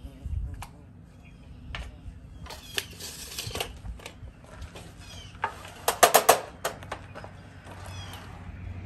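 Scattered sharp clicks and knocks from handling a tape measure and a pressure-treated board on a miter saw, the loudest a quick cluster of knocks about six seconds in. Birds chirp now and then.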